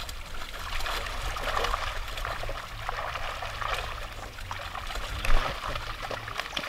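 Water splashing and dribbling as tambaqui thrash in a seine net held in shallow pond water, with one sharp thump about five seconds in.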